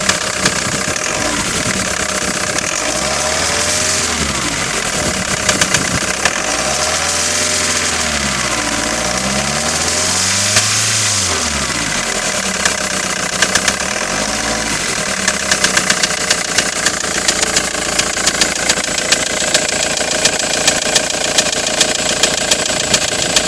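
2005 Ford Transit's 2.4 Duratorq diesel engine revved up and down about four times, then idling, with a sharp knock repeating through it: the knocking noise the owner is showing.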